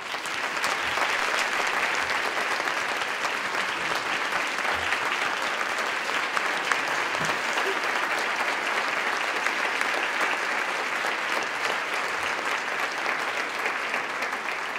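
A large audience applauding, dense and steady. It starts all at once and eases off slightly near the end.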